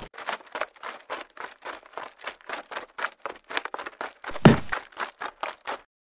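A rapid series of short, sharp knocks, about four a second and uneven in loudness, with one louder thud about four and a half seconds in; they stop suddenly shortly before the end.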